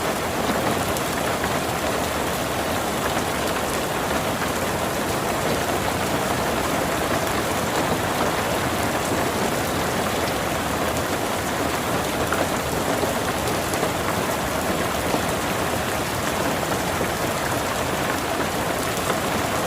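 Steady rain falling, an even patter of raindrops on a surface with no changes or breaks.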